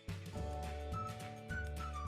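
Background music starting up: a steady low bass line under short high melody notes.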